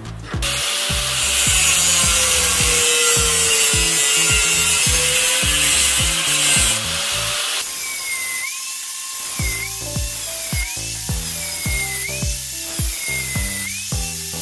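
Angle grinder with a thin cut-off disc cutting into a steel flat bar: a loud hiss with a whine that sags and recovers as the disc bites, easing a little about halfway through. Background music with a steady beat runs throughout.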